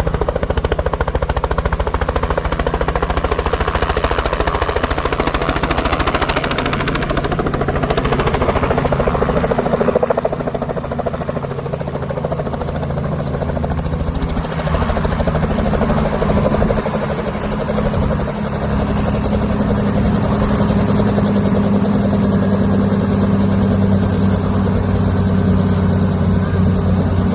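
Helicopter running close by, its rotor beating rapidly and evenly over a steady low hum; the hum grows stronger and steadier about halfway through.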